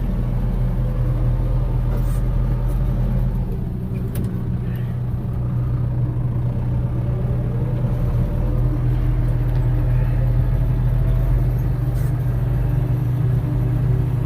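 Vehicle engine and road noise heard from inside the cab while driving: a steady low drone, with the engine pitch rising for a moment about seven seconds in.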